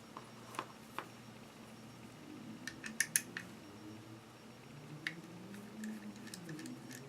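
Small scattered clicks and light taps of a Samson Meteor USB microphone's opened casing and parts being handled, with a quick run of clicks about three seconds in.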